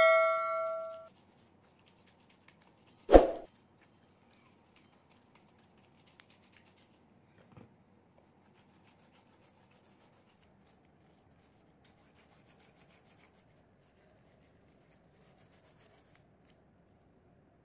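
A bell-like electronic chime, the ding of a subscribe-button animation, rings and fades out within the first second. About three seconds in comes a single short thump; the rest is very quiet, with only faint scattered sounds.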